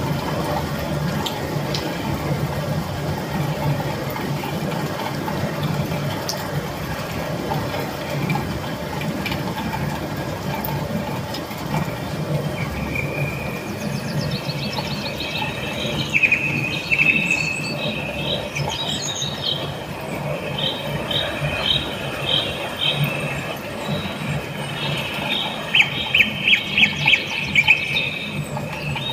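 Steady rain, joined about halfway by high-pitched chirping calls that repeat in short runs, the loudest a quick series near the end.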